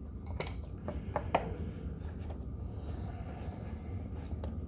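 Aluminum split-rim rings of an electric scooter wheel clinking and tapping against each other and the hub motor as the tyre assembly is handled: a cluster of sharp clinks in the first second and a half, then a few fainter taps, over a steady low hum.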